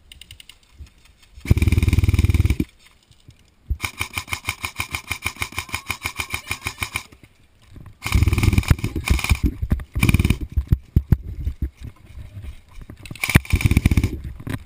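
Airsoft rifles firing four full-auto bursts, each a rapid mechanical rattle of shots. The longest, about three seconds, runs at roughly ten shots a second.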